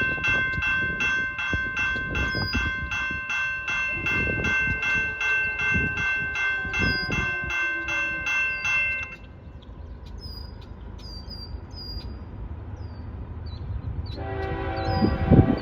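A grade-crossing warning bell rings rapidly and evenly, then cuts off about nine seconds in, over a low locomotive rumble and chirping birds. Near the end the lead locomotive's horn starts sounding for the crossing and grows loud as the train approaches.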